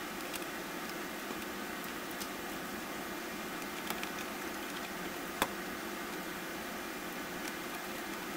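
Steady hiss with a few light, sharp clicks and taps, the loudest about five seconds in, as a plastic lid panel is handled and pressed onto a mini PC's perforated top cover.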